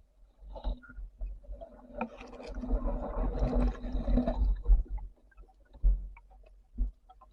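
Water noise picked up by an underwater camera during a breath-hold spearfishing dive: scattered knocks and clicks, with a longer rushing stretch of water noise in the middle.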